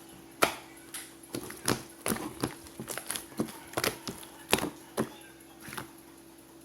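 Slime being squeezed and pressed by hand, making irregular sticky clicks and pops, roughly two a second, that die away about six seconds in.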